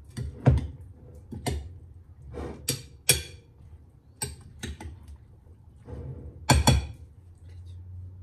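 A metal spoon stirring salad in a glass bowl, knocking and clinking against the glass at irregular intervals, with two louder knocks about two-thirds of the way through.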